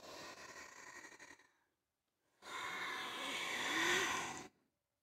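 A woman breathing with a cat-cow stretch. A soft breath in comes first, then after a short pause a longer, louder breath out that swells and stops about four and a half seconds in.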